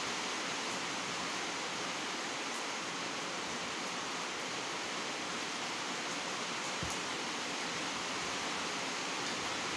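Steady, even background hiss, with one faint click about seven seconds in.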